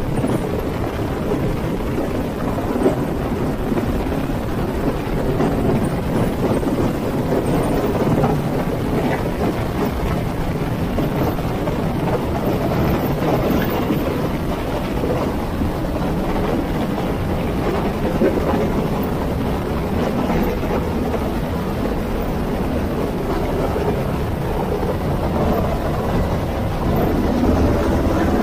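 UH-60 Black Hawk helicopter hovering low overhead: steady rotor and twin turboshaft engine noise, with the rotor downwash buffeting the microphone.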